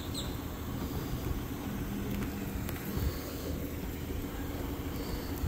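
The Tadano ATF 100G-4 mobile crane's diesel engine running steadily at a low hum, with a few faint knocks about three seconds in.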